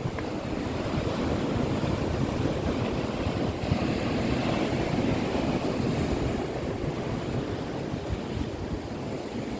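Wind buffeting the microphone with sea surf washing steadily behind it.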